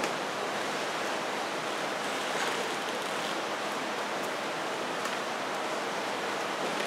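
Steady rushing background noise of the hall, even and unbroken, with no distinct events.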